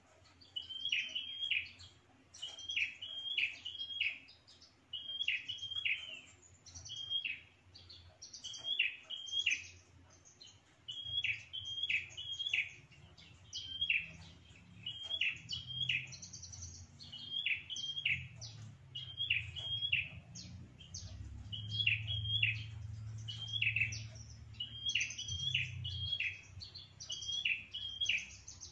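A caged prenjak, a rufous-headed tailorbird, singing its loud territorial song: short bursts of sharp, quick chirps repeated about every one and a half to two seconds. This is the song used as a pikat lure to draw wild rivals in.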